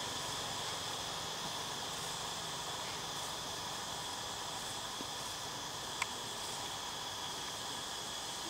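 Steady high-pitched chirring of insects, crickets or cicadas, over a continuous background hiss, with a single sharp click about six seconds in.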